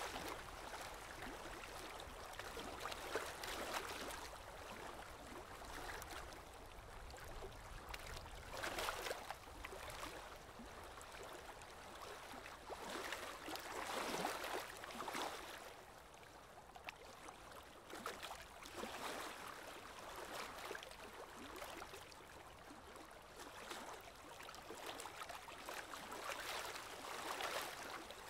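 Water rushing and splashing past a moving boat, swelling in irregular surges every few seconds.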